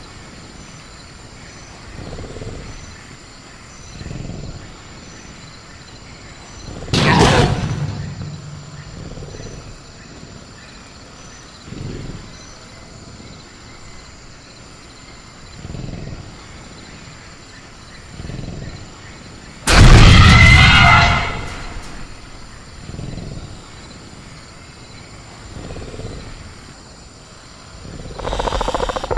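Sound-designed velociraptor in a cage: soft low growls and breaths every couple of seconds, with a loud growling outburst about seven seconds in and a louder, sudden outburst around twenty seconds in. Crickets chirp steadily behind it.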